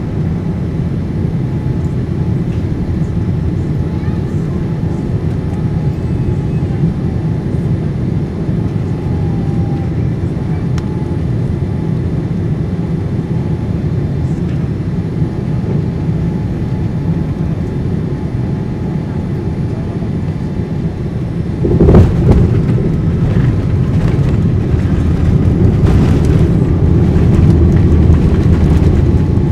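Cabin noise of a Boeing 787-9 on final approach: a steady rumble of engines and airflow. About three-quarters of the way through, the main gear touches down with a sharp thump, followed by a louder rumble as the wheels roll on the runway and the Rolls-Royce Trent 1000 engines go into reverse thrust.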